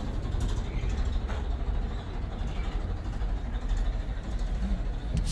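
Steady low rumble of a diesel tractor engine idling.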